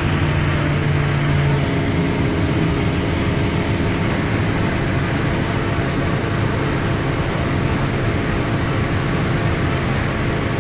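Inside a city bus, the engine hums and rumbles steadily over a constant rushing noise.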